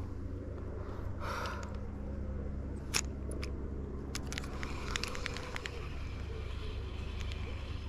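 Steady low hum of distant traffic, with a few sharp clicks from a spinning reel and rod being handled while a spinner lure is fished, the clicks bunched from about three to five and a half seconds in.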